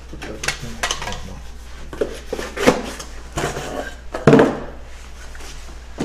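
Hand-handling of a new lock and its cardboard box: rustling cardboard with a series of knocks and metallic clicks, the loudest knock about four seconds in.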